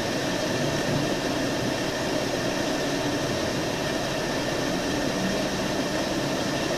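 Steady, even rushing noise with a low hum beneath it and no distinct events, like a running vehicle or ventilation heard through a body-worn camera.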